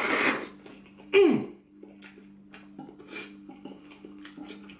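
A brief hissing mouth noise at the start, then about a second in a short, loud vocal sound falling in pitch, then faint clicks of chopsticks stirring in a small ceramic sauce bowl, over a steady low hum.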